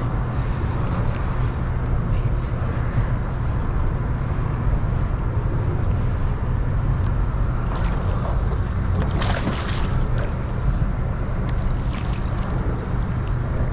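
A hooked fish splashing at the surface as it is brought up to the boat, in short bursts about eight seconds in and again a second or so later, over a steady low drone.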